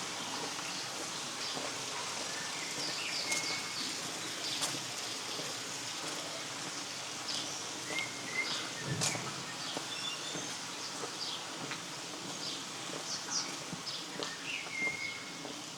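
Small birds chirping and giving short whistled calls over a steady rushing hiss of flowing river water, with one sharp knock about nine seconds in.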